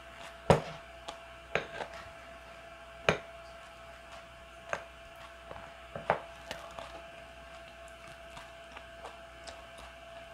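Wooden spoon scraping and tapping against a ceramic bowl of soft rice porridge: a string of sharp clicks, the loudest about half a second in, thinning out after about seven seconds. A faint steady hum underneath.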